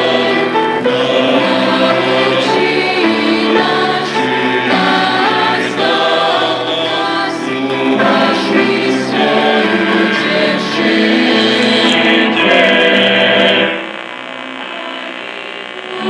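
Choir singing gospel music, played over the air through a 1957–58 Mopar Dodge Model 845 AM push-button car radio. A few crackles come near the end, then the music drops away to a quieter, thinner sound.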